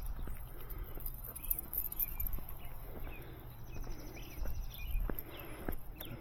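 Footsteps outdoors, heard as scattered light clicks and taps, with a few faint bird chirps in the middle.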